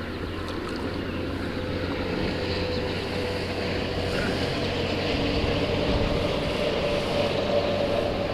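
A boat motor running steadily under wind and water noise, with a steady hum that slowly grows louder.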